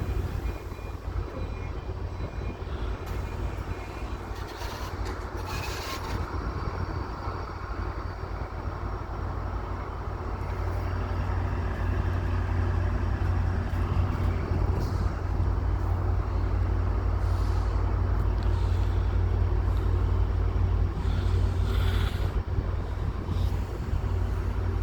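Metra F59PH diesel locomotive's 12-cylinder EMD 710 engine running with a steady low rumble, growing louder from about halfway through. A short hiss about six seconds in.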